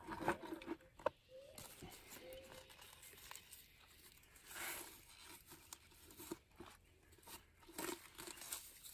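Squash leaves rustling and tearing as they are handled and pulled apart by hand, in scattered soft crinkles and snaps, louder for a moment about halfway through and again near the end.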